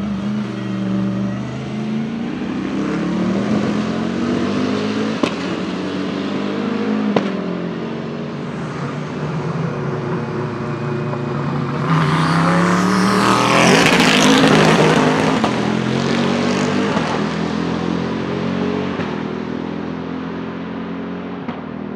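Bentley Continental GT3 race car's twin-turbo V8 pulling through the gears, its pitch climbing and dropping at each shift, with two sharp cracks about five and seven seconds in. About halfway through, a car passes close at speed: the loudest part, swelling and then fading away.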